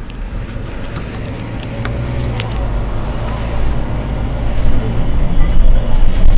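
Mercedes-Benz Citaro C2 city bus's diesel engine running while the bus stands at the stop, its low rumble growing steadily louder, with a few light clicks over it.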